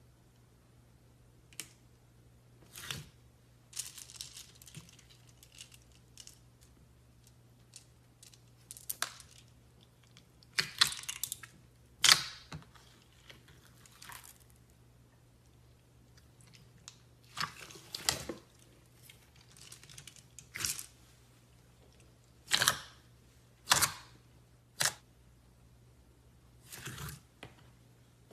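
Slime handled by hand, giving irregular sharp pops and crackling clicks, some in quick runs, with short gaps between.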